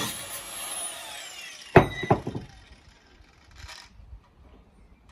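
Angle grinder switched off after cutting steel reinforcing bar, its whine falling in pitch as the disc spins down. Just under two seconds in come two sharp knocks about a third of a second apart, the loudest sounds.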